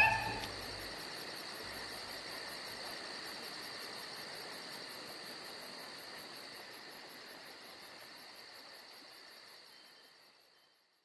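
A steady chorus of insects chirring, a high even tone with a faint pulse several times a second, slowly fading away to silence near the end.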